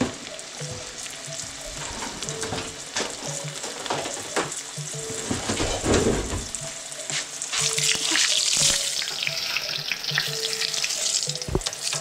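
Flour-and-egg-battered sheepshead fillets deep-frying in hot canola oil in a stainless steel pan: a steady crackling sizzle with scattered pops, growing louder and hissier about eight seconds in.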